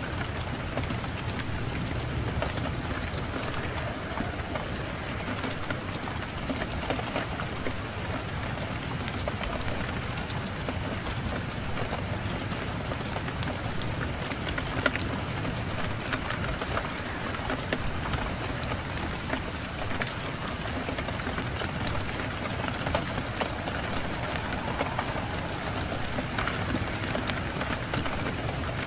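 Fireplace fire crackling, with many sharp pops and snaps over a steady hiss, and wind rumbling low underneath.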